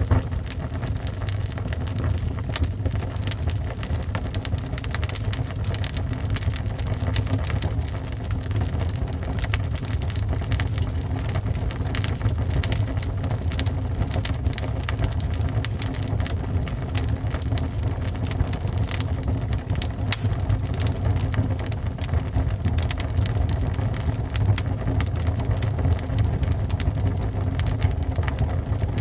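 Wood fire burning in a fireplace, with frequent crackles and pops over a steady low rumble.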